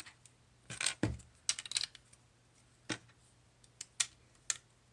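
Plastic Lego pieces clicking and clattering as they are handled and pressed onto a model, in a handful of separate sharp clicks.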